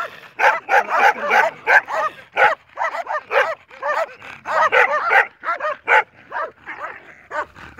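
Several dogs barking at once in rapid, overlapping barks, a pack of sheep-guarding dogs holding off a man who approaches their flock; the barking thins out near the end.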